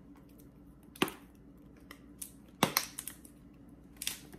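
Three sharp clicks and knocks about a second and a half apart, with a few fainter ticks, from a container of garlic powder being handled to get out powder that has hardened.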